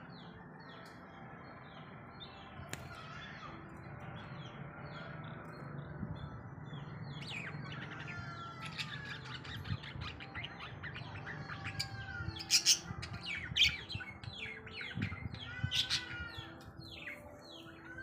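Pet budgerigars chirping in their cage. It starts as a run of short, evenly repeated chirps and grows into busier, louder chatter from about halfway, with sharp squawks about two-thirds of the way in.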